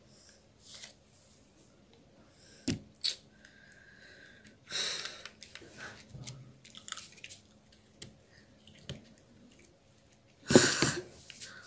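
A girl eating fuchka (panipuri) with no hands: scattered crunching and mouth clicks, with a forceful breathy burst about five seconds in and a louder one near the end.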